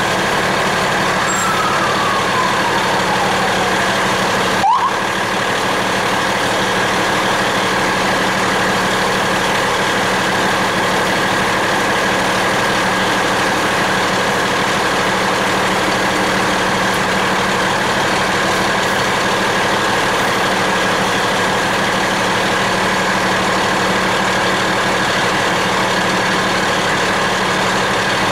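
Fire truck engine running steadily, heard from inside the cab. A faint siren tone falls in pitch over the first few seconds, and a short rising siren whoop comes about five seconds in.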